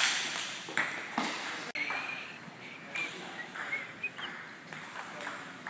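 Table tennis balls clicking off paddles and tables in an uneven rally, each click fading slowly in a large hall.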